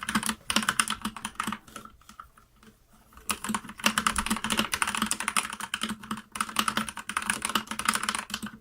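Keys of a Keychron K10 full-size mechanical keyboard with brown switches and an aluminium frame being typed on rapidly. A quick run of clacking keystrokes for about two seconds, a pause of about a second, then a longer run that stops just before the end.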